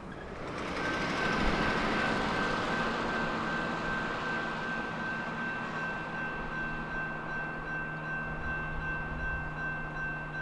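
Double-stack freight train led by a diesel locomotive approaching on the main line: a steady rumble that builds about half a second in, with a steady high tone over it from about a second in and a fainter, higher one joining later.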